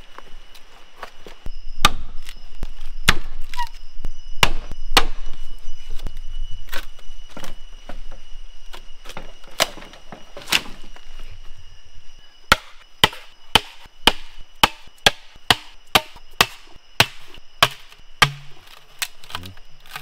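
Blade chopping with sharp, hard strikes, irregular at first and then a steady run of about two strikes a second from about halfway through.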